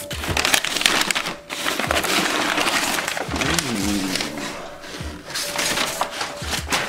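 Crumpled kraft packing paper and plastic bags crinkling and rustling as hands rummage through a cardboard box, in dense crackly spells.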